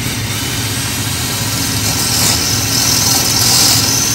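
Ryobi regular (non-hammer) drill with a masonry bit boring into concrete. The grinding gets louder about two seconds in, over a steady low hum.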